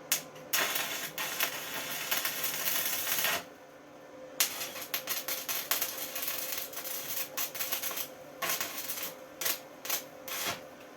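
Steel being welded: a dense crackling sizzle for about three seconds, then after a short pause a longer run of irregular crackles and pops.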